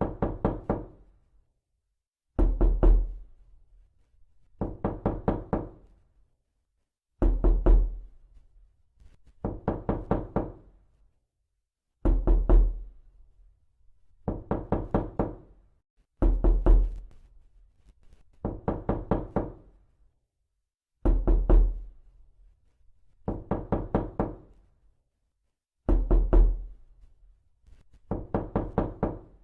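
Knocking on a door in repeated quick bursts of four to six knocks, each burst about a second long with the first knock the loudest, a new burst about every two and a half seconds.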